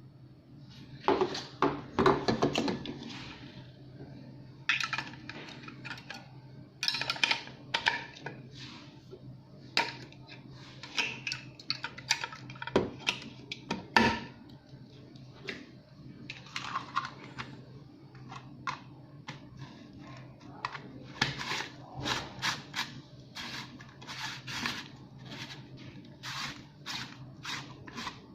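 Irregular clicking, clacking and rustling of hard objects being handled, over a faint steady hum.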